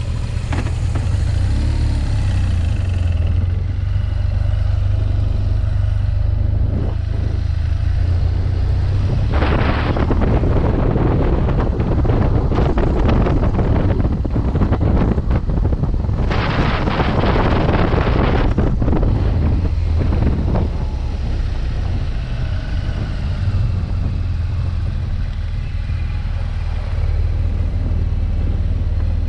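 BMW motorcycle engine running steadily, heard from the rider's helmet as the bike rides along. Two stretches of louder rushing noise come in about ten and about seventeen seconds in.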